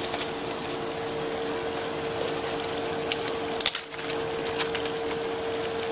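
Diced onion and garlic cooking in oil in a small saucepan: a steady sizzle with scattered small crackles, over a steady hum. The sound drops out briefly a little past halfway.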